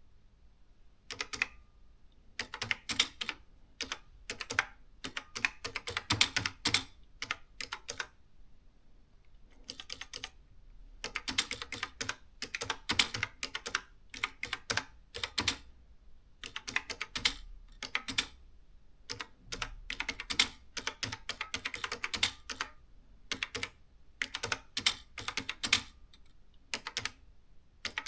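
Canon S-60 electronic typewriter being typed on: quick runs of key clicks with short pauses between them.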